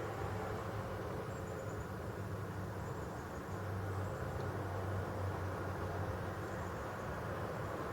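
A steady low droning hum with a rough rumbling haze, coming from a fireplace: a recurring noise of unknown cause that has also seemed to come from under the floor beneath a toilet.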